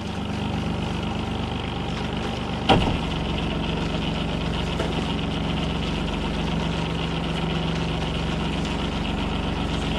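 A sailboat's inboard engine running steadily at low revs, a constant low hum. A brief, louder knock-like sound comes about three seconds in.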